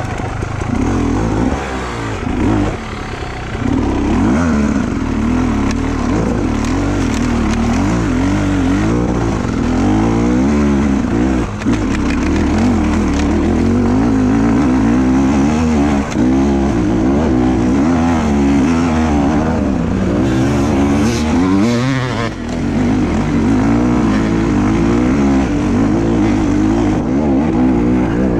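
Enduro motorcycle's engine heard from on board, pulling hard up a steep, stony track. The throttle rises and falls constantly, with a few brief lets-off.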